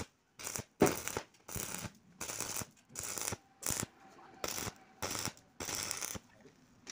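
Stick-welding arc crackling on steel square bar, struck in about nine short bursts with brief gaps as the joints are tacked, the loudest about a second in.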